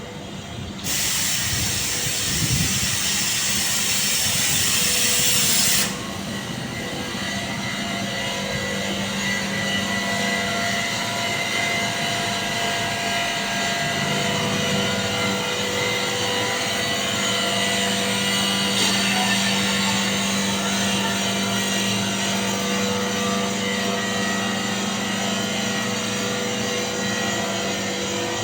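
A 30 kW (40 hp) VFD rotary screw air compressor running steadily, a mechanical hum with several steady tones. A loud hiss starts about a second in and cuts off suddenly about six seconds in.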